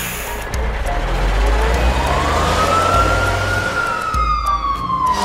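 Cartoon fire engine siren sounding one slow wail: it rises in pitch from about a second and a half in, peaks, then falls slowly. A low, steady engine rumble runs underneath.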